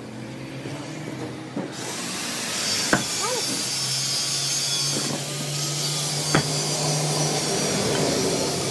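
A power tool starts up about two seconds in and runs steadily with a hissing, grinding noise. A sharp knock sounds twice over it.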